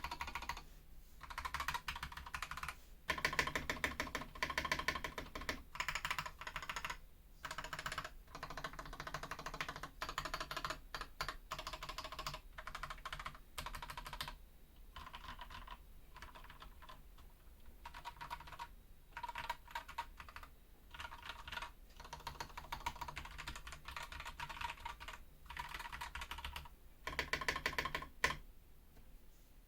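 Typing on a BM980 mechanical keyboard with an aluminium plate, fast runs of keystrokes in bursts of a second or two with short pauses between.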